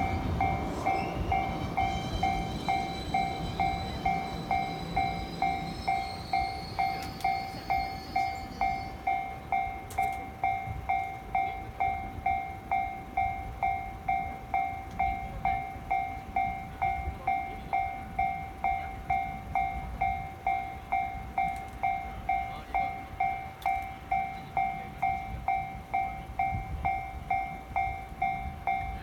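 Japanese railroad crossing warning bell ringing steadily at about two strokes a second: the crossing is closed for an approaching or passing train. Over the first nine seconds or so, a train's rumble with a rising whine fades away under the bell.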